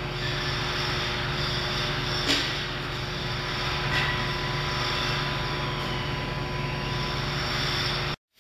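Steady mechanical drone of a Wexxar BEL 290H packaging machine running, with two light clicks a couple of seconds apart; the sound cuts out briefly at the very end.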